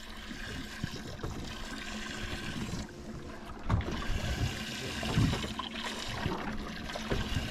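Sea water sloshing and lapping against a boat's hull, over a faint steady hum, with a few knocks from handling the rod and reel.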